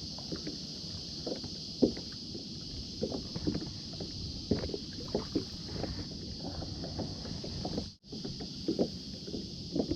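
Kayak being paddled: irregular splashes and knocks of the paddle in the water and against the hull, over a steady hiss. The sound cuts out briefly about eight seconds in.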